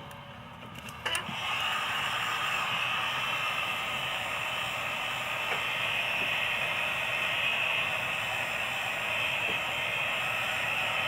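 A click about a second in, then a steady hiss.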